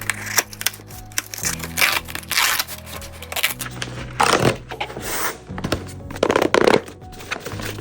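Background music with a steady beat, over the crinkling, tearing and clicking of blind-box packaging being handled and opened; the loudest rustling comes around the middle and near the end.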